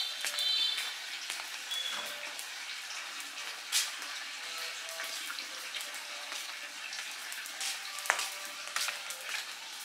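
Trash fire burning: a steady hiss with scattered crackles and pops, one louder pop near the middle and another about eight seconds in.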